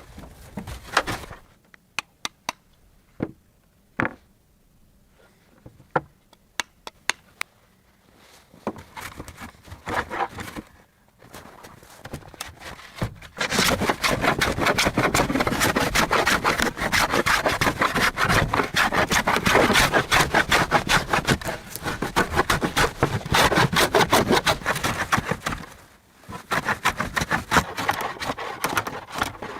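Scattered wooden knocks, then a long stretch of fast, continuous sawing strokes on wood that stops suddenly near the end.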